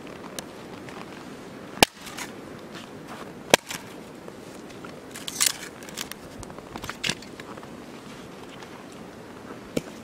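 A hatchet chopping and splitting firewood on a chopping block: about five sharp chops, the loudest two near two and three and a half seconds in.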